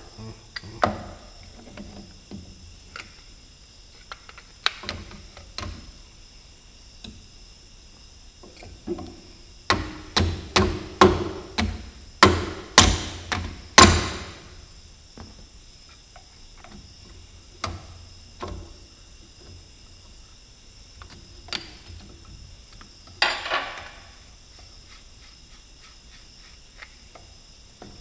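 Hammer striking the metal pilot control joystick assembly of a Cat D3C dozer to knock its parts loose. There are a few single taps, then a quick run of about eight blows a little under halfway through, then several more single taps.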